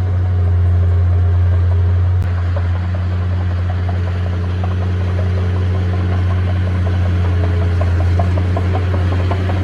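Heavy diesel earthmoving machine's engine running steadily with a deep, even hum, with a faint rapid ticking coming in during the second half.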